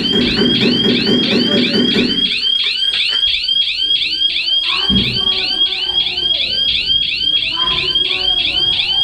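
Electronic alarm siren sounding continuously in a fast, repeating up-and-down warble, about four sweeps a second, with a low pulsing sound under it for the first two seconds.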